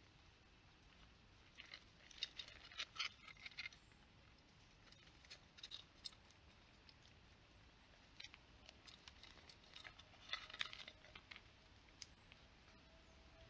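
A red squirrel scrabbling at a hanging pumpkin feeder and the nuts beneath it makes clusters of light clicks and scratches, coming in several short bursts over a faint background.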